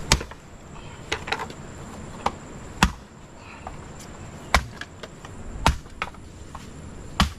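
A series of sharp, irregularly spaced chopping knocks, about seven, with a steady high insect drone behind.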